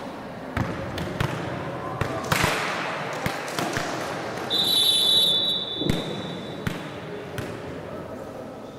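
Volleyball rally sounds: the ball being struck and bouncing with short sharp knocks, over players' and onlookers' voices and shouts. About halfway through, a referee's whistle blows once, a steady high tone lasting about a second, while the voices swell.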